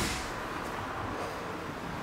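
Steady, even background noise with no distinct events. The tail of a sharp thump fades out right at the start.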